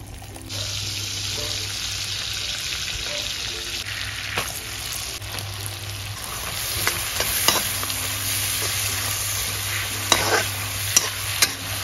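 Hot oil sizzling steadily in a kadai as sliced onions fry. A spatula stirs and scrapes against the pan, with a few sharp clicks near the end.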